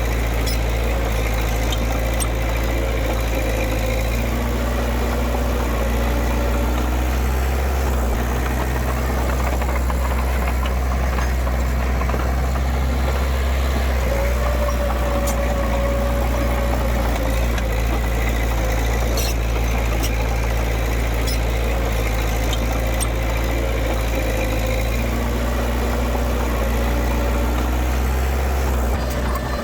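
Heavy diesel engine of earthmoving machinery running steadily, with a few faint clicks over the steady engine hum.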